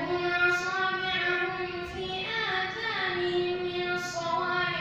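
A boy's voice chanting Quranic recitation in drawn-out melodic phrases, long held notes gliding between pitches.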